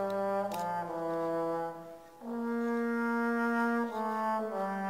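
Background music: a slow melody of long held notes, with a brief dip in loudness about two seconds in.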